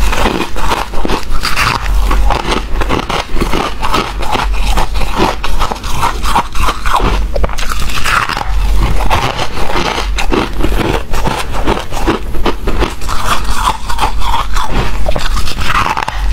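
Close-miked biting and chewing of chunks of freezer frost: dense, irregular crunching and crackling, bite after bite.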